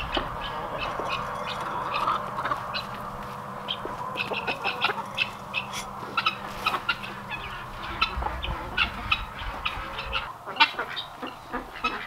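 Poultry calling around a barnyard: many short, high calls in quick succession.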